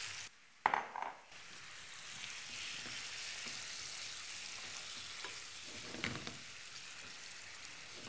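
Marinated chicken pieces frying in oil and marinade in a non-stick frying pan: a steady sizzle, with a wooden spatula stirring the pieces and knocking against the pan now and then, most sharply about a second in.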